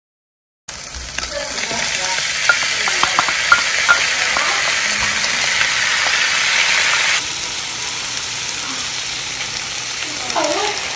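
Cubed Spam and vegetables sizzling as they fry in a nonstick wok, with a few sharp clicks about two to four seconds in. The sizzle starts after a moment of silence and drops quieter about seven seconds in.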